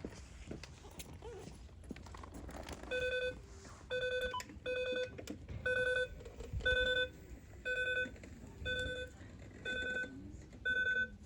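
An electronic beeper sounding a steady, buzzy single-pitch beep over and over, about one beep a second, starting about three seconds in.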